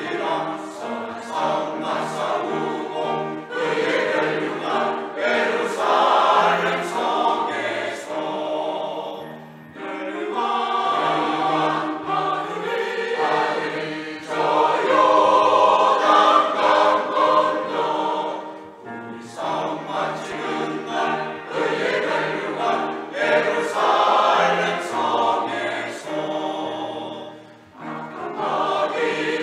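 Church choir singing an anthem in several voice parts, in long phrases with short dips between them.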